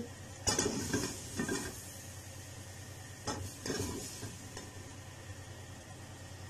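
Spoon scraping cooked mutton heart pieces out of a pressure cooker into a bowl, with clinks against the pot: one spell about half a second in and another a little after three seconds, over a steady low hum.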